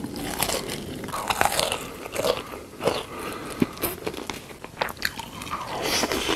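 Close-miked eating sounds: fresh cherries bitten and chewed, with repeated crisp crunches at irregular intervals.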